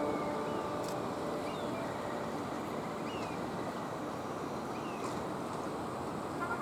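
Steady outdoor harbour ambience, an even noise, with a few short, high, falling bird chirps scattered through it.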